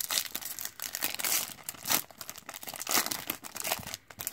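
Shiny foil wrapper of a 1991 Pro Set Series 2 football card pack being torn open and crinkled by hand: a dense run of irregular crackles, loudest about a second and a half in and again near three seconds.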